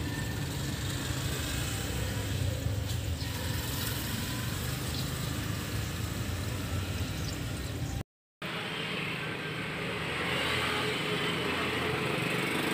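A Kia Bongo's engine idling steadily while coolant is poured into its radiator after a water pump replacement. The sound drops out for a moment about eight seconds in.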